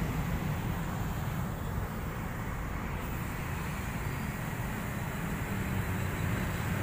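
Low, steady engine rumble with an even outdoor background noise.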